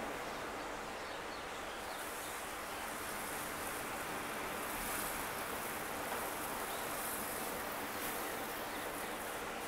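Steady outdoor wash of sea and wind noise, with no distinct engine tone. A higher hiss joins about two seconds in.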